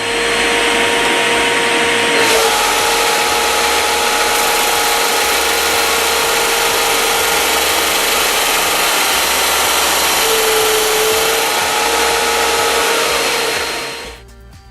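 A SIP combined belt and disc sander with a 1 hp motor runs loudly with a steady whine, grinding noise and a steady hum. The sound grows fuller about two seconds in, as a workpiece is pressed to the abrasive. Its tone dips briefly around ten seconds in, and the noise falls away shortly before the end.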